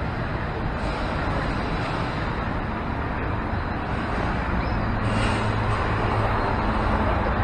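Steady city street traffic noise, with a low engine hum that grows louder from about halfway through.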